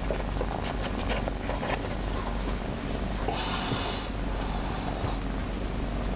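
A domestic cat purring steadily up close while its head is stroked, with a brief rustle about three seconds in.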